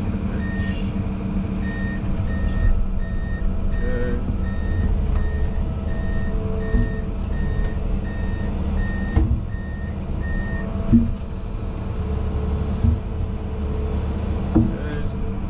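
Excavator's travel alarm beeping evenly at one pitch, about twice a second, over the diesel engine running, heard from inside the cab; the beeping stops about two-thirds of the way through, and a few brief knocks follow.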